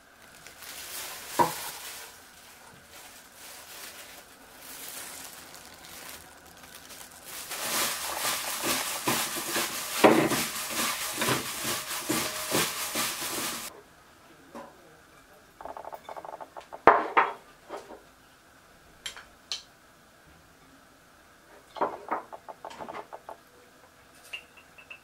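Dried pollack strips rustling and crackling as plastic-gloved hands toss them in a stainless steel bowl, densest for about six seconds in the middle and stopping abruptly. Afterwards a few scattered clinks and knocks.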